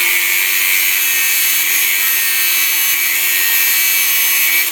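Angle grinder with a thin cut-off disc running at a steady speed while cutting a coiled wire thread insert to length: a steady motor hum under a loud, hissing grind.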